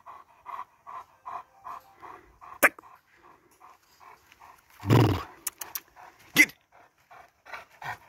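Presa canario dog panting steadily, about two to three breaths a second. A single louder burst comes about five seconds in, and there are a few sharp clicks.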